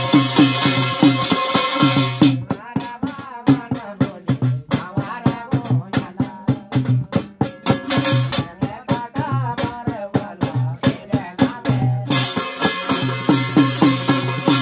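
Live Garhwali jagar ritual music: percussion beats a steady rhythm with a bright metallic rattle. About two seconds in, the rattle drops away, leaving sparser beats under a wavering sung line. It returns in full near the end.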